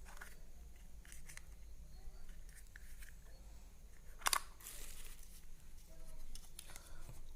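A plastic car phone holder being handled: light rattles and small clicks, with one sharp click about four seconds in.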